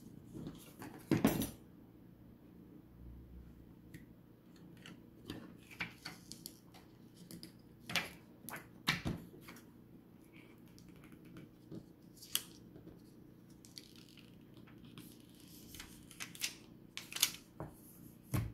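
Plastic screen-protector film and backing tabs being handled and peeled off a phone screen: scattered short crinkles, rustles and light taps, the loudest a little over a second in.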